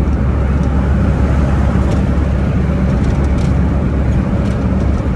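Car cruising on a highway: a steady low engine drone with road noise, unchanging throughout.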